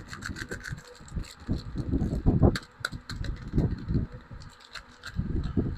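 Hands handling and unpacking soap packaging: irregular rustling and soft knocks with scattered small clicks and taps.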